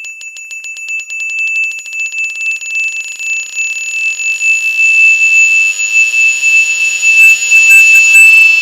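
A high-pitched electronic alarm tone, like a smoke-alarm beeper, held steadily and growing louder, with a faint swirl of sweeping overtones under it. It cuts off near the end.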